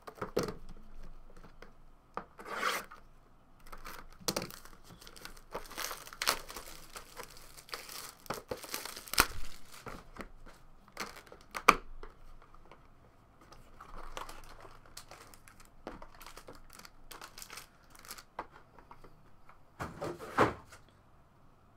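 Plastic shrink-wrap being torn off a sealed Panini Preferred basketball card box and crinkled, with irregular rustles and sharp clicks as the box is opened and the card case inside is handled.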